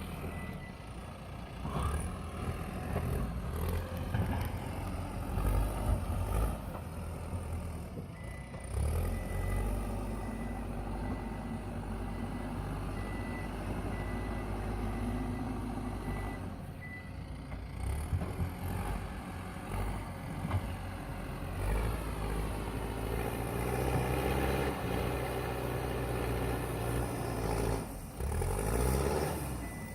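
JCB backhoe loader's diesel engine working under load, its revs rising and falling in the second half. A high beeping, like a reversing alarm, sounds in the middle.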